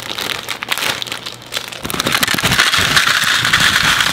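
Plastic instant-ramen packet crinkling as it is pulled open, then from about halfway a louder, denser rustle and crackle as the dry noodle block is worked out of the bag into a bowl.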